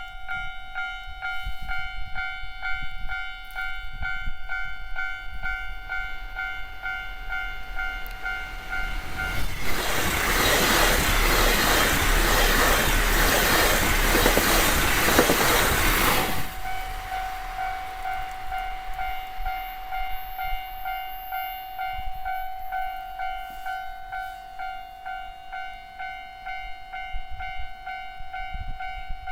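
Level-crossing warning bell ringing in a steady repeating ding. About ten seconds in, a train rushes past for about seven seconds, drowning the bell out, and then the bell keeps ringing.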